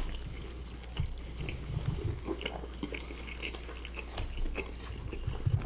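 Close-miked chewing of breaded parmigiana with melted cheese, with many small wet mouth clicks scattered throughout.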